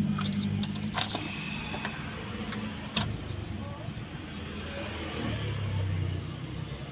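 Light clicks and taps of a smartphone mainboard and a small screwdriver being handled, a few sharp ones about a second in and again about three seconds in. Under them a vehicle engine hums steadily and grows louder about five seconds in.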